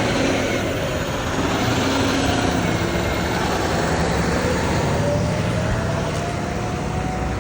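Street traffic with a vehicle engine running. A faint engine note rises slowly over the last few seconds.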